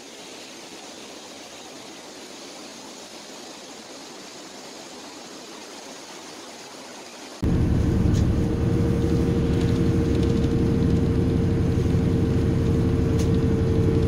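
Faint steady outdoor hiss, then about seven seconds in a sudden jump to loud, steady vehicle noise heard from inside a moving car: a low road rumble under a steady engine hum.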